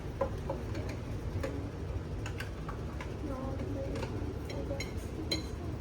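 Scattered sharp clicks and taps, a dozen or so spread irregularly, from small items being handled. A steady low background rumble and faint distant voices run underneath.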